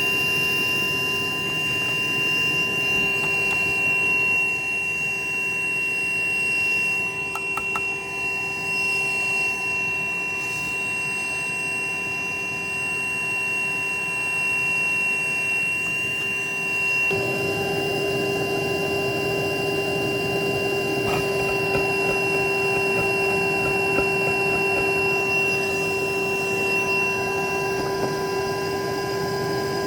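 Motor-driven fan running steadily: a hum with a few whining tones over a rush of air, growing louder about 17 seconds in.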